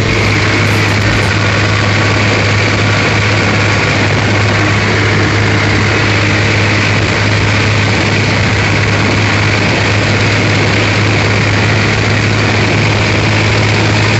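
Escort 355 tractor's diesel engine running steadily while the tractor drives along a road, heard close up from the seat near the upright exhaust. Loud and even, with a strong low note.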